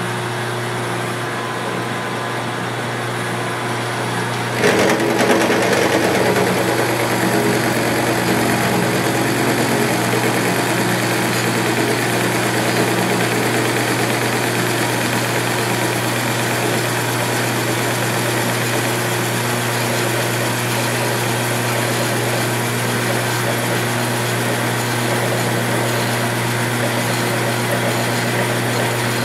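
Mill-drill spindle running under power, then an indexable face mill biting into a 6061 aluminum plate about five seconds in and taking a steady facing cut of about 20 thousandths, the motor hum joined by a grainier cutting sound. The machine's drive belts are a little loose.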